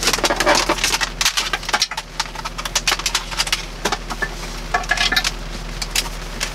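A USB keyboard and its cable being handled and stowed inside the vehicle: a run of irregular light plastic clicks and clatter over a steady low hum.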